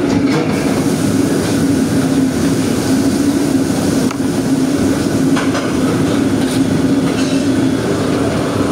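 A commercial wok burner and the kitchen's exhaust hood running with a loud, steady rush and a constant hum, with a few sharp clinks of a metal ladle against the wok.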